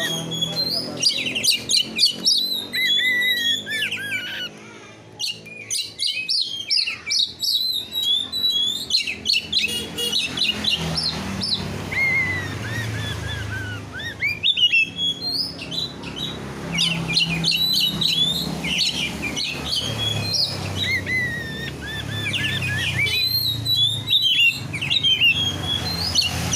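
Songbird song: a fast, varied run of chirps, falling whistled glides and rapid clicking trills, with a low steady hum underneath.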